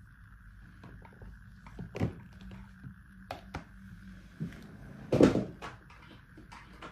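Scattered clicks and knocks of objects being handled, with a sharper knock about two seconds in and a louder thump just after five seconds.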